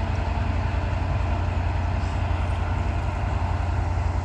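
Heavy diesel engine of the crane setting the beams, running steadily with a deep, even rumble.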